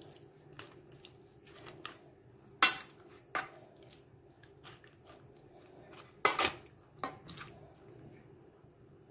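Occasional clacks and clinks of kitchen dishes and utensils being handled: sharp knocks about two and a half and three and a half seconds in, the loudest a little after six seconds, with a few lighter ticks between.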